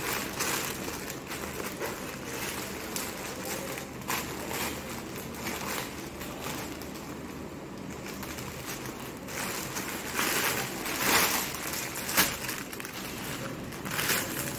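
Plastic parcel packaging rustling and crinkling in irregular bursts as it is opened and a garment is pulled out, louder in the last few seconds.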